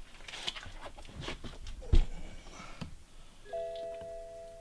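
A few knocks and one loud thump about two seconds in, then a steady whine of several even tones from about three and a half seconds in: the BMW 328i's power side-mirror motor running as the mirror is driven on its adjustment.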